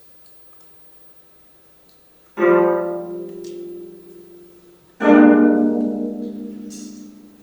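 25-string gayageum: two low plucked chords, the first about two seconds in and the second about two and a half seconds later, each ringing and slowly fading.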